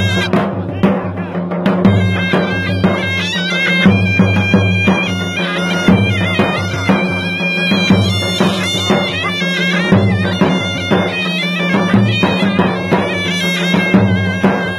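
Large double-headed drums beat a steady rhythm, and about two seconds in a shawm joins with a fast, ornamented, high reedy melody over them.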